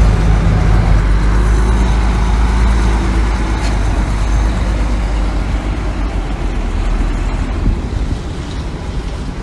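Heavy diesel engine of an earthmoving machine running steadily with a deep, loud hum, easing off a little in the second half.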